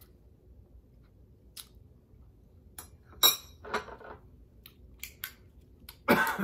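A metal spoon clinking against a hot sauce bottle, with a few light clicks and handling sounds around it. A short, louder noise comes near the end.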